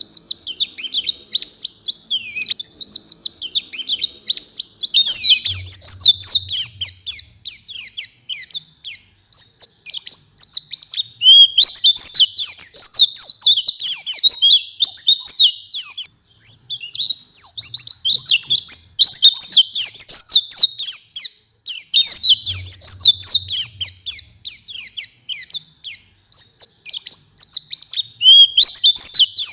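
White-eye (pleci) singing hard in full song: a fast, high twittering of rapid chirps and trills, delivered in long phrases with short pauses every several seconds.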